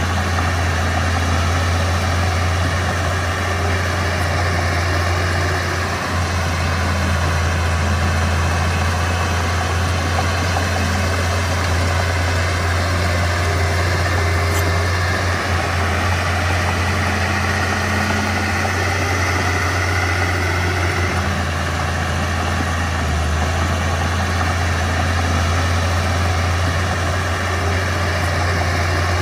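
Diesel engine of a Mitsubishi BD2F bulldozer running steadily, a constant low engine note with no changes in speed.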